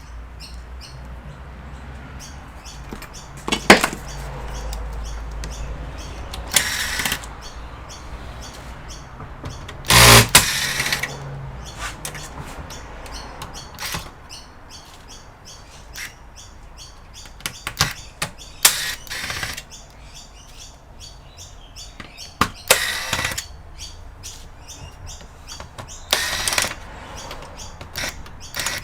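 Intermittent clicks, snaps and clatters of hands and tools working on a computer's plastic casing and internal parts during disassembly, with a few louder knocks.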